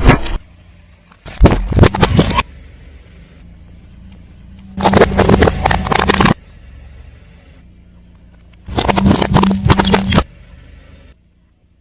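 Car tyre rolling over and crushing brittle objects: three separate bursts of crackling and snapping, each lasting a second or so, with a low steady engine hum between them.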